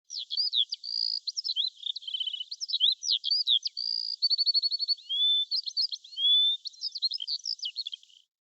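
A songbird singing a rapid, varied song of whistled notes, slurred chirps and quick trills, breaking off near the end.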